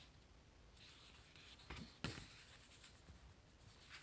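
Faint paper rustle as the cover and first pages of a thin softcover book are turned by hand, with a light tap about two seconds in.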